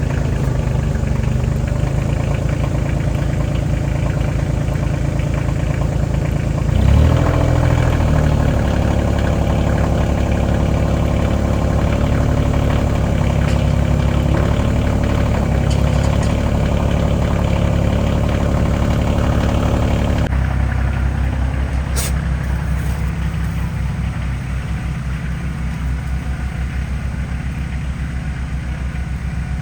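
Farm tractor engine idling, then revving up about seven seconds in and running steadily under load.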